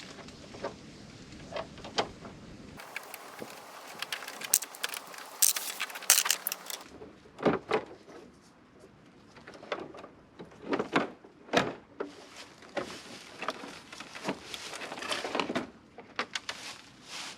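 Irregular clicks, clinks and short scrapes of hand work with tools and small metal parts.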